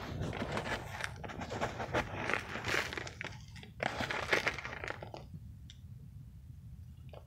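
A hand scooping and stirring through a bowl of mothballs and crushed mothball granules: gritty crunching and rustling with small clicks of balls knocking together. It stops about five seconds in, leaving only faint sounds.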